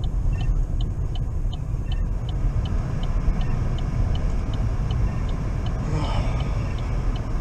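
Car cabin while driving slowly: a steady low rumble from the road and engine, with a light, regular ticking about three times a second. A brief swell of noise comes about six seconds in.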